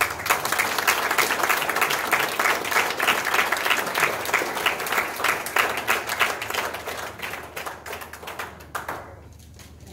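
Audience applauding: dense clapping that thins out over the last few seconds and stops about a second before the end.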